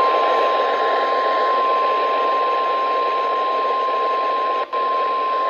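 NOAA Weather Radio warning alarm tone: a single steady high tone of about 1050 Hz over heavy radio static, broken by a very brief dropout near the end. This tone signals that a warning broadcast follows.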